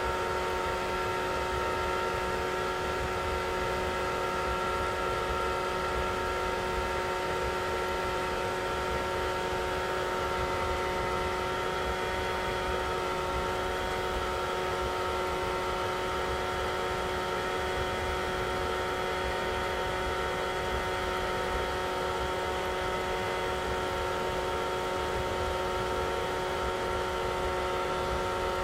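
Hair dryer running steadily: a constant rush of air with an unchanging motor whine made of several steady tones.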